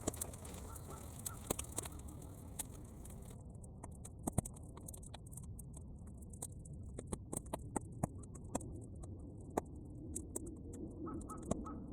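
Bonfire of half-dried weeds crackling: irregular sharp pops and snaps over a steady low rumble, sped up to triple speed.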